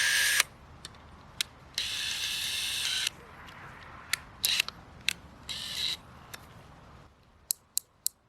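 Plastic hose fittings being worked onto a Wolfcraft drill pump: three short rasping scrapes, each up to about a second long, with scattered sharp clicks between them.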